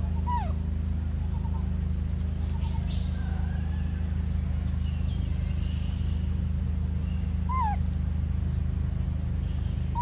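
Two short, high monkey squeaks, each falling in pitch, one near the start and one about three quarters in, over a steady low hum.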